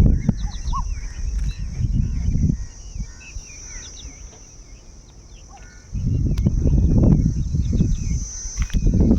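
Outdoor countryside sound: a steady high insect drone with many short bird chirps over it, and wind buffeting the microphone for the first couple of seconds and again from about six seconds on.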